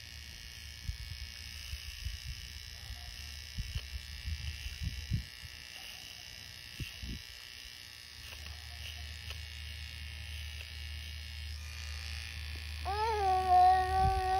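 Low-noise cordless pet clipper buzzing steadily as it trims a small dog's muzzle hair. Near the end the dog gives a brief whine that rises and then holds, louder than the clipper.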